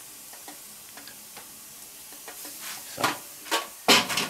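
Pork medallions sizzling quietly on the grate of a charcoal kettle grill. A few sharp clatters about three to four seconds in, from a stainless steel tray and tongs being handled and set down.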